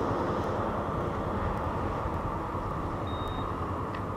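Steady low rumble of a scooter's engine and wind noise on a helmet-mounted camera's microphone as the scooter rolls slowly to a stop, easing off slightly. A brief faint high beep sounds about three seconds in.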